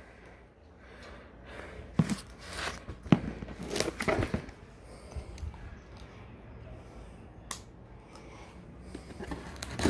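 Cardboard shipping boxes and plastic-wrapped parcels being handled and shifted: rustling and crinkling plastic with a few sharp knocks and scrapes, most of them in the first half.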